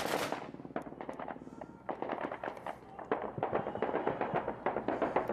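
A rapid burst of automatic gunfire cuts off just after the start. Scattered, irregular gunshots follow, several a second, some near and loud, others fainter and farther off.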